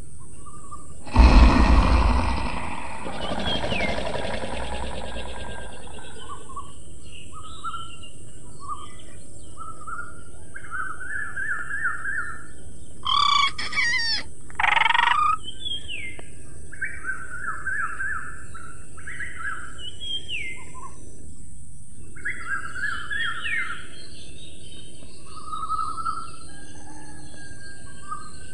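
Many birds chirping and trilling over a steady high hiss. About a second in, a loud deep rumbling burst fades away over several seconds, and about halfway through come two louder, harsher calls.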